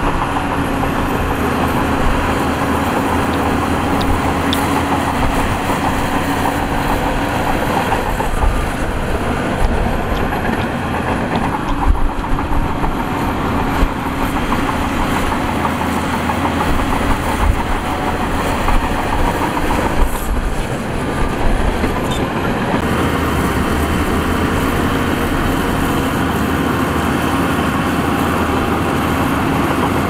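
Diesel engines of heavy earthmoving machinery, a dump truck and bulldozer at work, running steadily under load, with scattered short knocks and clanks.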